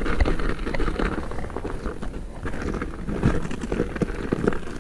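A bicycle on 2.6-inch Schwalbe Ice Spiker Pro studded tyres rolling along a rutted snow track over river ice: wind rumbling on the microphone, with the crunch of the tyres and many small knocks and rattles as the bike jolts over the ruts.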